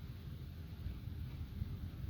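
Low, steady rumbling noise of wind buffeting the microphone.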